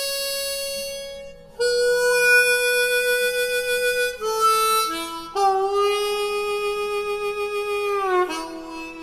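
Solo harmonica music playing slow, long held notes, with a bend up into one note about five seconds in and a downward slide near the end.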